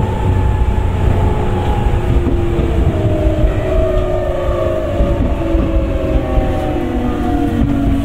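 Tokyu 9000 series electric train's early Hitachi GTO-VVVF inverter and traction motors whining as it runs, several tones falling slowly in pitch as the train slows, over a steady rumble from the running gear.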